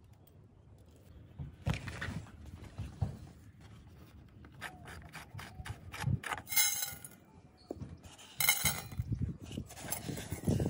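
Hands working through coarsely ground corn: grain rustling and scraping against a metal pot, with scattered small clicks and a couple of short bursts of rustling.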